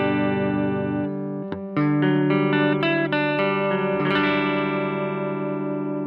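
Greg Bennett Royale RL-1 semi-hollow electric guitar played clean-ish: chords struck and left to ring, with a new chord about two seconds in and another about four seconds in.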